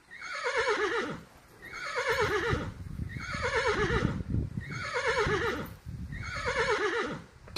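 Horse whinnying five times in a row, about one call every second and a half. Each call starts high and slides down in a quavering, trembling fall.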